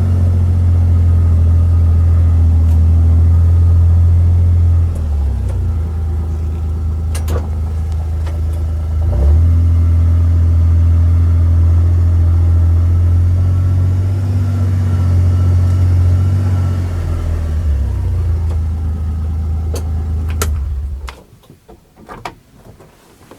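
A motor vehicle's engine running steadily with a low hum, its pitch shifting slightly a few times, then shutting off about 21 seconds in, followed by a few faint knocks.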